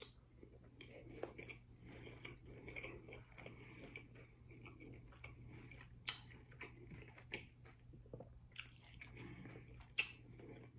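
Close-up biting and chewing of a crunchy hard-shell taco, with a few sharp crunches about six, eight and a half and ten seconds in.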